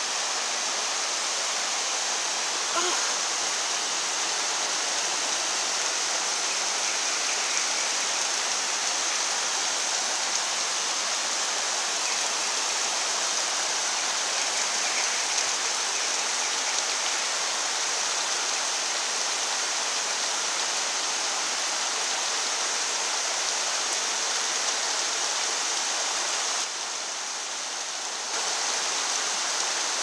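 Waterfall pouring down stepped rock ledges into a rocky stream: a steady rush of falling water, briefly a little quieter near the end.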